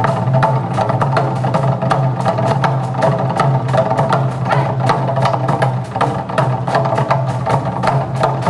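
Korean drum ensemble playing a fast, dense rhythm on buk barrel drums, many sharp stick strikes in quick succession over sustained musical tones.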